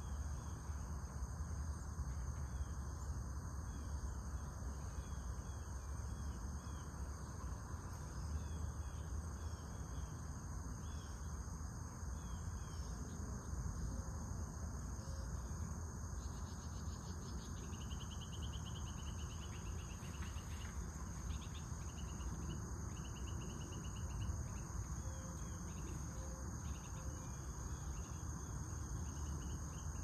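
Summer insects calling: a steady high-pitched trill throughout, with rhythmic pulsed chirp trains joining in stretches from about halfway on, over a constant low rumble.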